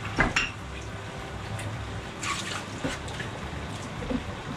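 Chicken pieces cooking in their own juices in a stainless steel pot, a faint steady sizzle and bubbling. A few light scrapes and clinks come from a plastic measuring spoon scooping salt out of a glass jar, one near the start and one about halfway through.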